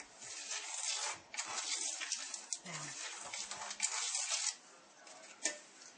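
Pencil scratching across a plastered wall as a line is drawn, a rough rasping that lasts about four seconds, followed by a single light click.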